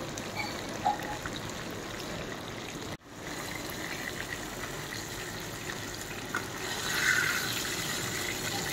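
Whole spice-coated fish frying in hot oil in an iron kadai: a steady sizzling hiss, a little louder near the end as fish are lifted out of the oil, with a few light spatula clicks.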